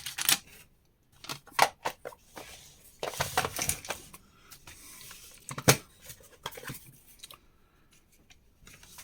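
Small metal nuts, bolts and washers clinking and rattling as they are picked through by hand, with a string of irregular clicks and one louder clack past the middle.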